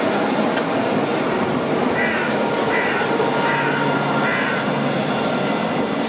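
A bird calling four times, one call about every three-quarters of a second, over steady street noise with a low hum.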